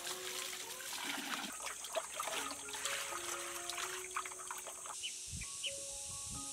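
Water splashing and trickling as sliced bamboo shoots are rinsed by hand in a basin of water; the water sound stops abruptly about five seconds in. Soft background music plays underneath.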